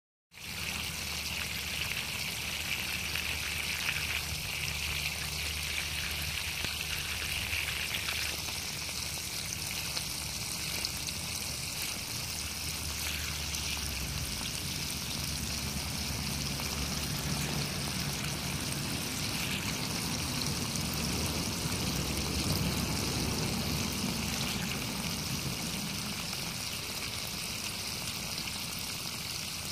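Water running steadily out of the open end of a garden hose, splashing onto the grass and soil.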